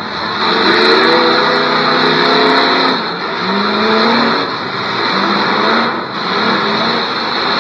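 Demolition derby cars' engines revving hard, their pitch rising and falling again and again as the cars accelerate across the dirt arena.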